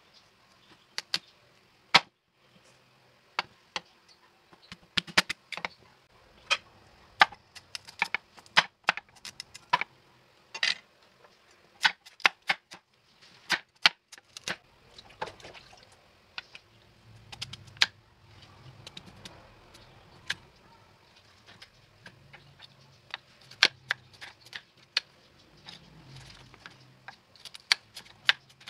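Large kitchen knife chopping peeled root crops on a wooden chopping board: irregular sharp chops of the blade hitting the board, sometimes in quick runs of two or three, with short pauses between.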